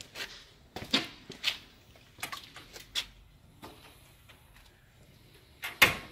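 Aluminium swinging screen door and its hardware clicking and knocking: a few sharp clicks spread out, then one much louder knock near the end.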